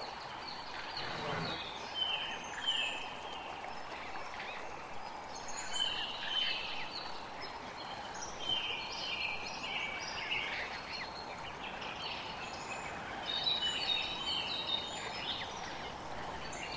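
Wild birds chirping in the bush, many short descending chirps repeated throughout over a steady background hiss.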